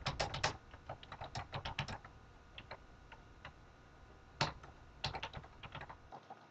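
Typing on a desktop computer keyboard: quick runs of key clicks in the first two seconds and again from about four and a half seconds in, with a few scattered keystrokes between.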